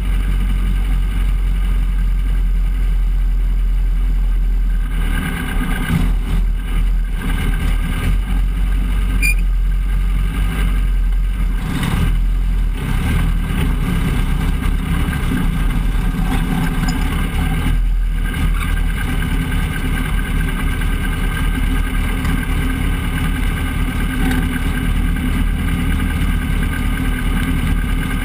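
Race truck engine heard from inside the cab, running at low revs: idling steadily for about the first five seconds, then pulling the truck slowly over dirt. There are a couple of brief knocks about halfway through.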